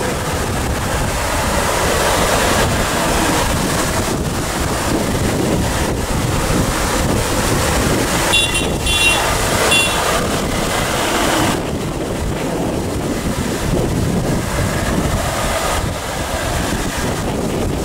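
Convoy of Volvo FH tractor units driving past one after another: steady diesel engine rumble and tyre noise, with wind on the microphone. A short run of high-pitched pulsed tones sounds about eight seconds in.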